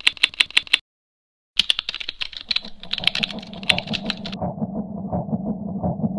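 Typing sound effect: rapid runs of key clicks, a short burst, a pause of about a second, then a longer run that stops about four seconds in. A low, regular pulsing beat comes in under the last of the typing.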